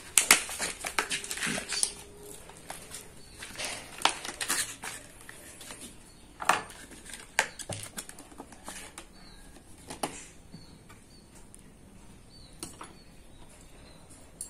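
Paper and cardboard packaging crinkling and rustling in short, irregular bursts, busiest in the first two seconds, as a pack of replacement planer blades is handled and opened.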